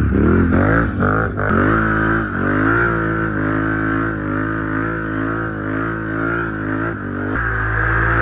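Can-Am Renegade XXC 1000 ATV's V-twin engine revving up and down quickly for the first second or so, then pulling at a fairly steady pace with a slight wavering pitch. The sound changes suddenly near the end.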